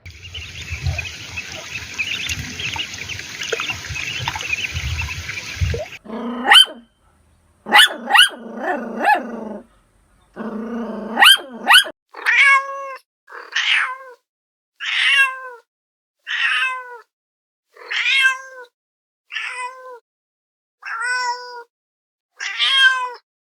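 A domestic cat meowing over and over, a string of about ten falling meows roughly one a second in the second half. It is preceded by a few shorter gliding calls and, at the start, about six seconds of a busy, noisy sound.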